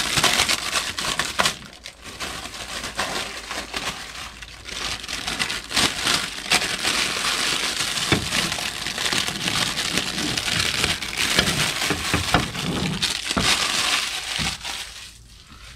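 Loud crinkling and crackling of plastic packaging being handled and pulled off a part by hand, dying away near the end.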